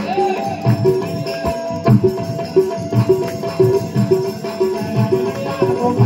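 Music with a steady, quick beat and jingling, shaken percussion.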